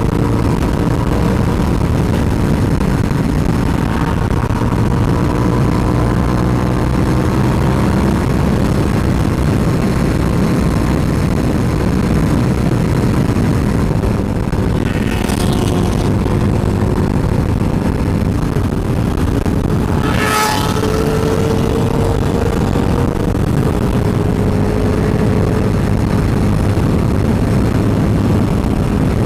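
Suzuki SV650 V-twin engine running at steady highway speed, heavily overlaid by wind rushing over the bike-mounted camera. The engine pitch drifts slightly, and two brief whooshes cut through about halfway along.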